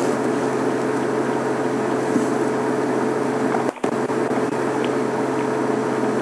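Steady mechanical hum with a constant tone over a hiss, cutting out briefly a little over halfway through.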